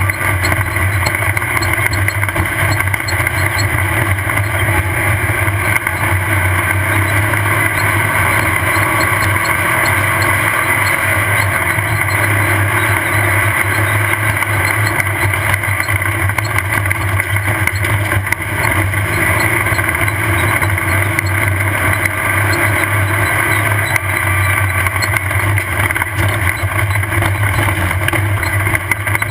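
Off-road race vehicle driving at a steady pace: its engine runs evenly under load under a constant rushing noise, with no let-up or sudden change.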